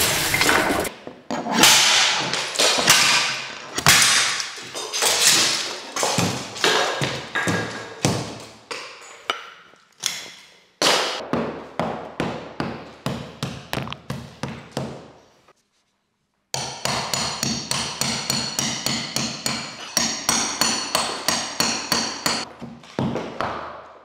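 Hammer blows against a wall during demolition: irregular strikes with a ringing edge at first, then quick, even blows about three a second, with a brief break in the middle.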